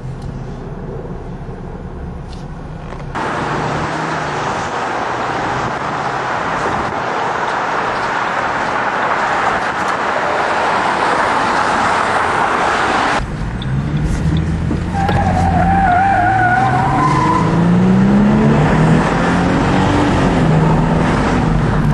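Ford Mustang's 4.0-litre V6 heard from inside the car while driving: a low engine hum, then a loud rush of road and wind noise that cuts off suddenly about two-thirds of the way in, after which the engine note climbs in pitch in repeated sweeps as the car accelerates through the gears.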